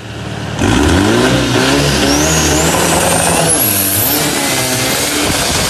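Longtail boat engine revving hard, kicking in loudly about half a second in, its pitch swinging up and down as it runs at speed, with a thin high whine climbing in the middle.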